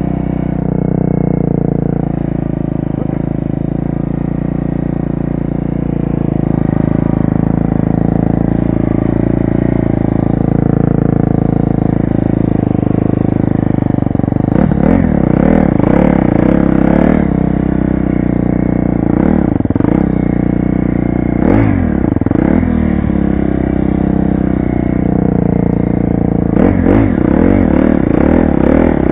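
2012 KTM 250 SX-F's single-cylinder four-stroke engine running at a steady throttle, then revving up and down again and again from about halfway through as the dirt bike is ridden along the track.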